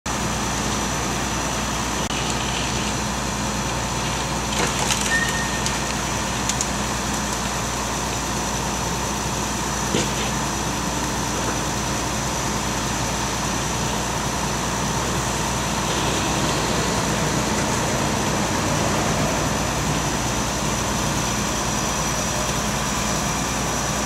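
A heavy machine's engine running steadily, with a few short cracks about five seconds in and again near ten seconds.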